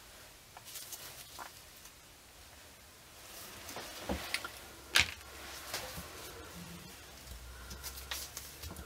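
Gloved hands handling freshly cut soap bars at a wooden wire soap cutter: scattered light taps and soft rustling, with one sharp knock about five seconds in.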